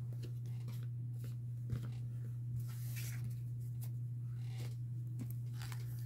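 Pokémon trading cards and foil booster packs being handled: soft rustles, slides and light taps, with a brighter rustle about three seconds in. A steady low hum runs underneath.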